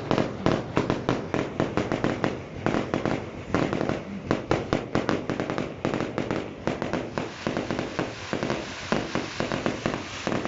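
Rapid crackling fireworks: a dense, irregular string of sharp bangs and pops, several a second, with no let-up.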